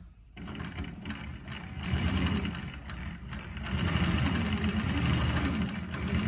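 Consew P1255RB long-neck, single-needle walking-foot industrial sewing machine stitching through several thick layers of strapping, a fast, steady stitching rhythm. It starts just after the beginning, eases off briefly near the middle, then runs on louder.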